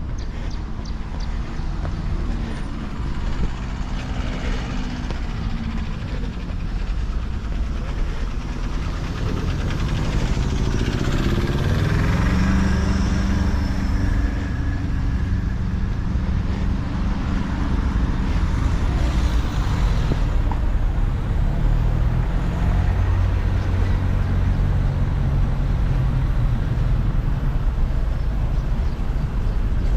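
City street traffic: motor vehicle engines running close by, with one rising in pitch as it speeds up about ten seconds in and a heavier low engine hum later on.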